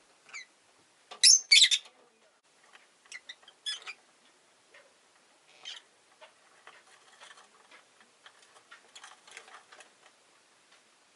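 Rosy-faced lovebird giving short, sharp chirps, the two loudest close together about a second and a half in, followed by softer chirps and light ticking and tapping sounds.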